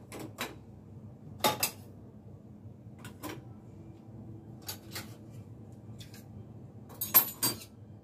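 Ceramic bowls and ceramic soup spoons clinking against each other and the dishwasher's wire racks as they are loaded: a string of short, sharp clinks every second or two, with the loudest cluster near the end.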